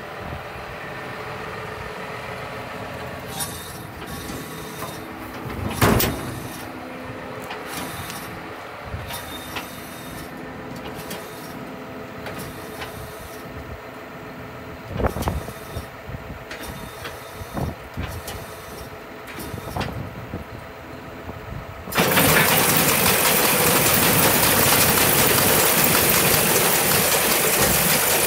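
An engine idling steadily, with a few sharp knocks over it. About two-thirds of the way through, a much louder, even rushing noise sets in abruptly and holds.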